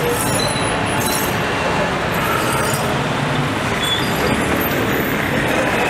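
Steady city-street noise, mostly road traffic.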